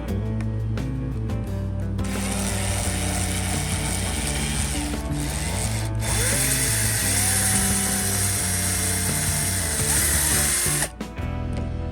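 Small power drill running on a diecast wheel part, starting about two seconds in, pausing twice briefly and stopping near the end, over background music.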